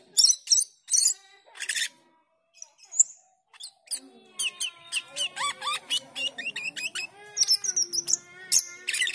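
Asian glossy starling calling: a few sharp, high chirps, a short pause, then from about four seconds in a rapid run of squeaky chattering notes, the 'ngriwik' chatter used to provoke a caged bird into singing.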